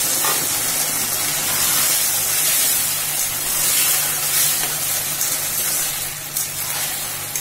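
Chilli chicken gravy sizzling and hissing steadily in a hot aluminium kadai as it is stirred with a steel spatula.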